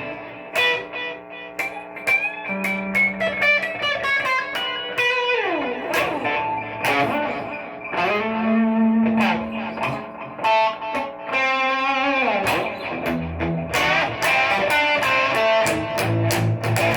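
A 1970s Japanese-made Raven Telecaster-copy electric guitar played unaccompanied: picked single-note lines with several notes bent or slid up and down in pitch, and chords struck near the end.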